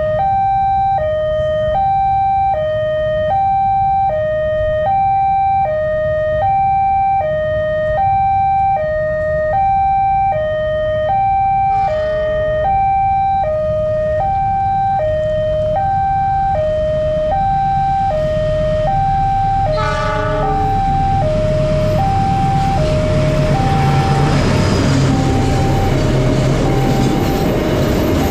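Railway level-crossing warning siren alternating steadily between two tones, E-flat and G, each held about half a second. From about two-thirds of the way through, the rumble of an approaching train rises and grows louder under the siren.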